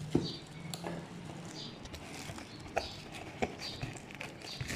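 Scattered light knocks and clicks of a rechargeable fan and its parts being handled and pulled out of their cardboard packaging, at irregular intervals.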